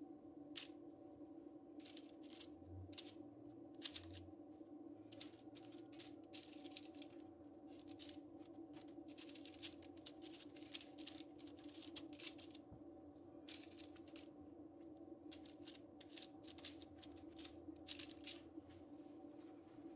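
Faint, irregular soft taps and rustles of baking paper as dough balls are set down one by one on a parchment-lined metal tray, over a steady low hum.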